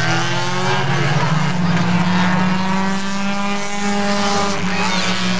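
Several Bumblebee-class stock car engines running together around an oval track. Their pitches rise and fall as the cars accelerate and lift through the turns.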